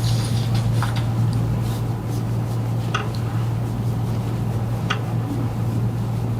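A steady low hum, loud and unchanging, with a few faint clicks about one, three and five seconds in.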